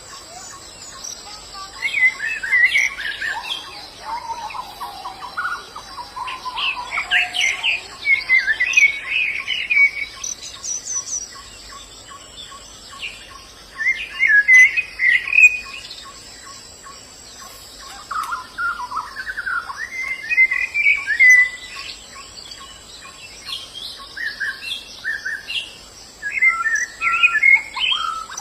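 White-eyes (pleci) singing: quick twittering runs of high chirps in about half a dozen bouts a few seconds apart.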